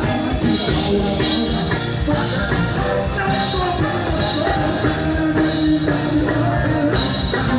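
Band music with drums and guitar, played continuously, with a melodic line that may be a voice.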